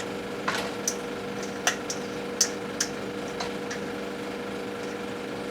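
Scattered light clicks and clinks of kitchen utensils and mussel shells against a pot as cooked pasta is added to mussels in tomato sauce, about six of them, over a steady hum.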